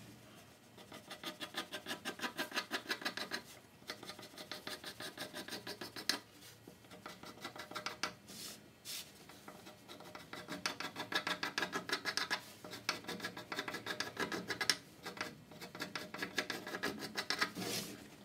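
A pencil scratching on a plywood seat board in quick back-and-forth strokes, about five a second, with a few short pauses. It is marking out the toilet hole that is to be cut.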